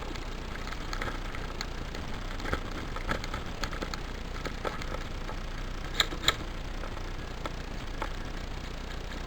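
Scattered light clicks and knocks over a steady background noise, with two sharp, louder cracks about a third of a second apart a little past the middle.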